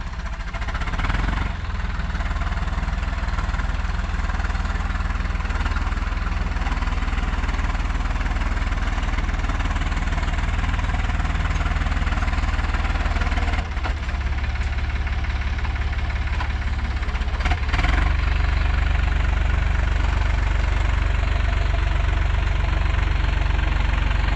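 Hattat 4x4 tractor's diesel engine running steadily under load while the tractor works over a rough obstacle, with a few brief knocks. It gets louder near the end as it is pushed harder.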